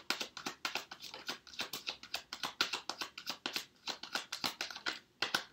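Rider-Waite tarot cards being shuffled by hand: a rapid, uneven run of light clicks, several a second.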